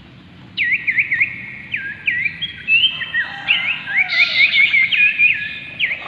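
Common iora singing: a run of sharp whistled notes, each dropping and then rising again, starting about half a second in and quickening into a dense chattering series in the second half.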